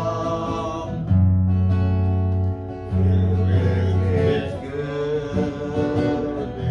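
Gospel worship music with acoustic guitar, long held bass notes and singing.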